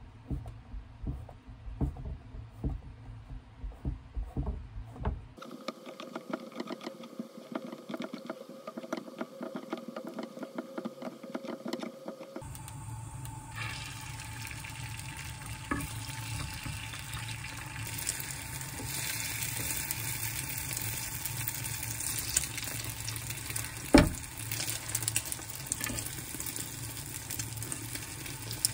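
A kitchen knife chopping king oyster mushrooms on a wooden cutting board, then a stretch of fast, even clicking. After that, beaten egg poured into a hot square rolled-omelette pan sizzles steadily as it fries, with light utensil scrapes and one sharp knock near the end.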